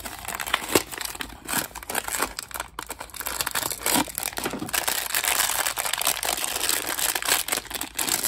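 A small cardboard blind box being opened, then a foil blind bag crinkling and being torn open by hand, with a dense crackle through the second half.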